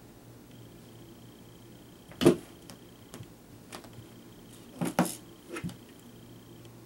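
Clear plastic tub knocked and bumped about on carpet by a cat batting at a toy underneath: a sharp plastic knock about two seconds in, a few light taps, then a cluster of knocks around five seconds in.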